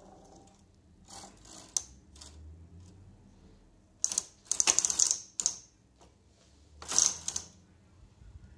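Silver Reed SK328 knitting machine carriage moving over the needle bed, its cams and pattern drum clattering across the needle butts in several rattling bursts, the loudest a little past halfway. This is the side that runs correctly, without jamming.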